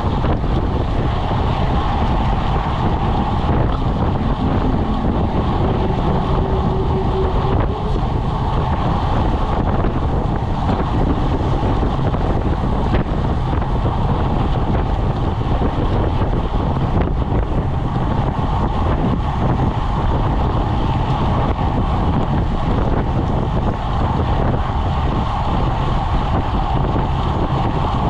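Wind rushing over the microphone of a camera on a road bike riding at about 26 mph: a steady, loud low rumble.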